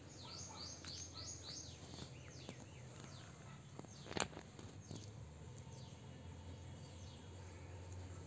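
Small birds chirping outdoors: a quick run of short, high, downward-sweeping calls in the first couple of seconds, then scattered single calls. A sharp click a little past the middle is the loudest sound, over a steady low hum.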